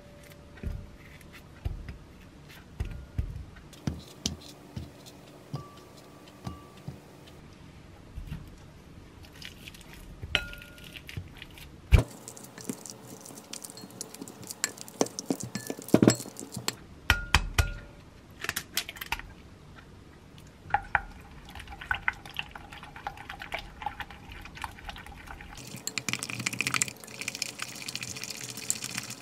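Kitchen utensils working in a glass mixing bowl: banana pieces dropping in, then a potato masher knocking and squashing banana against the glass with repeated clinks and taps, loudest in the middle. Near the end a spatula stirs batter briskly around the bowl.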